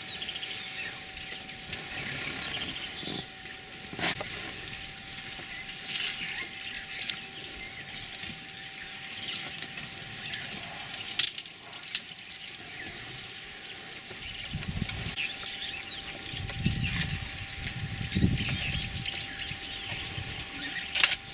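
Elephant herd moving and feeding close by in the bush: scattered sharp snaps and cracks of vegetation, with birds chirping throughout and several low rumbling sounds in the later part.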